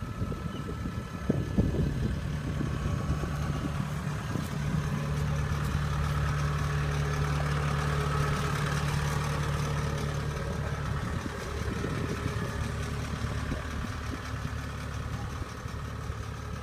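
Diesel engine of a Kubota tracked combine harvester running steadily, with a few knocks and rattles about a second and a half in.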